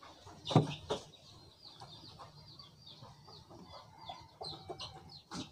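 Chickens clucking, with short high chirps repeating throughout. Two sharp knocks, the loudest sounds, come about half a second and a second in, and another near the end, as the vape mod is handled.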